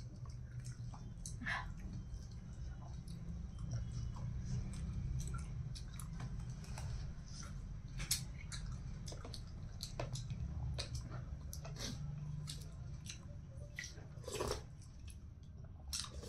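Close-miked chewing and wet mouth clicks of a person eating rice and greens by hand, over a steady low hum. Near the end she sips broth from a spoon.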